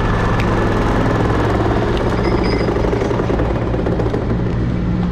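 Heavy pile-extraction machinery running steadily: a low engine drone with a fast, even rattle over it from the vibratory hammer rig.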